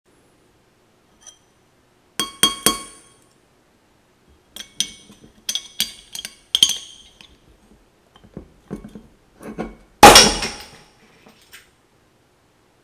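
A metal spoon clinking and tapping against glass and the metal crown cap of a glass bottle in short bursts of light, ringing clinks. Then, about ten seconds in, the cap is levered off with the spoon in one loud pop.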